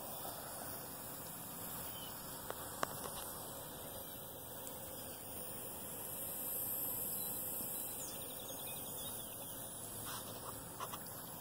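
Faint steady outdoor hiss that swells a little about six seconds in, with a few short sharp clicks.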